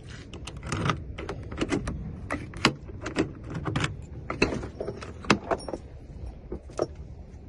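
Keys jangling with many sharp metallic clicks as a freshly cut key is worked in the Ford F250's door lock.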